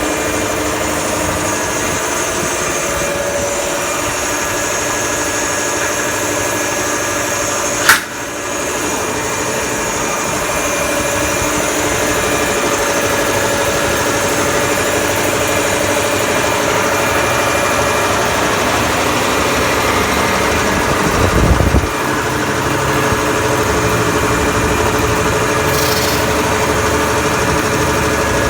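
Piston air compressor running steadily, from a compressor whose owner reports no compression from the piston and vibration while it runs. A sharp click about eight seconds in and a brief low thump about three quarters of the way through.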